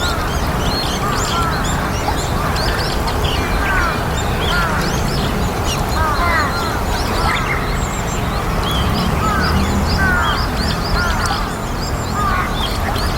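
A flock of white-cheeked starlings calling: many short, overlapping chirps, over a steady low background rumble.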